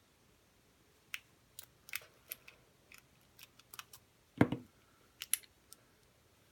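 Lock pick and tension wrench clicking in a pin tumbler lock as the pins are picked: irregular small metallic clicks starting about a second in, with one louder knock about four seconds in.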